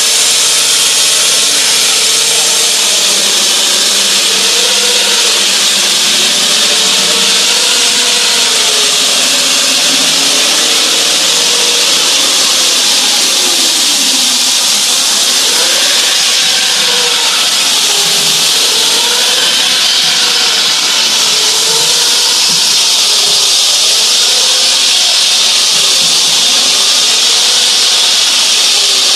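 Hydraulic diamond wall saw running, driven by its electric hydraulic power pack, cutting reinforced concrete. It makes a loud, steady hiss with a lower whine that slowly wavers up and down in pitch as the load on the blade changes.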